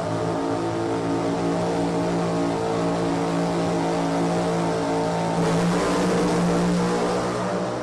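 Top alcohol funny car engines running at the drag strip's starting line with a steady, pitched drone. About five and a half seconds in the sound swells as the cars launch, then begins to fade near the end.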